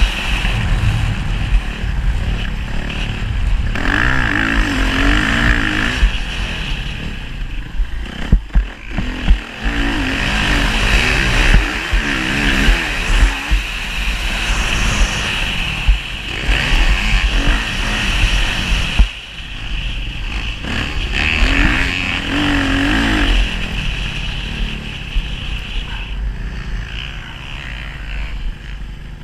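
Motocross motorcycle engine running hard, its revs rising and falling again and again with the throttle and gear changes, with brief drops in sound about a third and two thirds of the way through.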